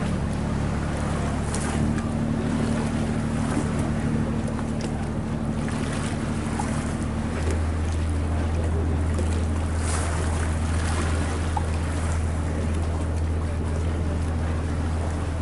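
Boat engine running with a steady low drone, its note shifting about halfway through, under a constant hiss of water and wind on the microphone.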